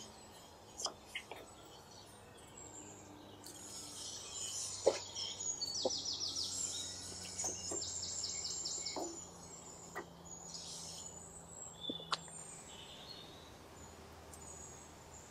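Birds chirping, with two quick trills near the middle, over a low background hum. Scattered short knocks and clinks come from handling at a wood-fired dome oven.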